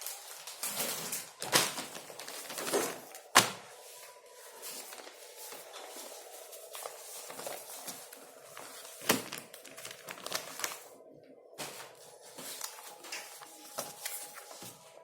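Scratchy, tapping writing sounds with a few sharp knocks, loudest near the start and about nine seconds in, over a faint steady hum.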